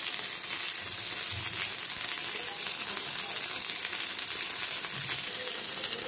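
Masala-marinated mackerel shallow-frying in oil in a black pan, sizzling steadily with fine crackles.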